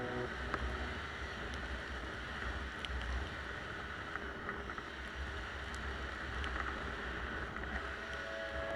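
Snowmobile riding along a trail: a muffled low rumble from the engine and track under a steady rush of wind noise.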